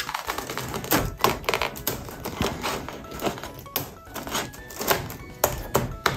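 Plastic N gauge track sections (TOMIX wide PC rail) being handled and pressed together, making many sharp clicks and knocks, over light background music.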